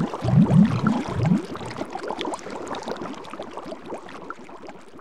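Bubbling water: a dense stream of short rising gurgles, loudest in the first second and a half and then fading away.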